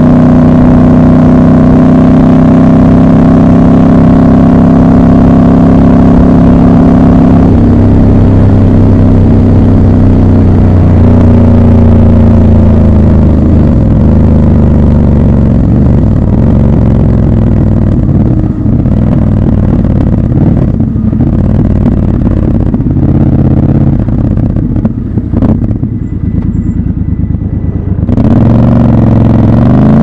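Triumph Scrambler 1200 XC's 1200 cc parallel-twin engine heard from the rider's seat. It runs steadily at cruising speed for the first several seconds, then drops in pitch at about seven seconds. A long stretch of lower, uneven running with scattered short pops follows, before the engine rises in pitch and accelerates again near the end.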